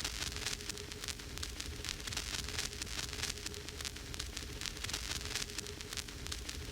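Vinyl record turning with no music playing: steady surface crackle, a dense run of clicks and pops over hiss and low rumble, with a faint steady hum.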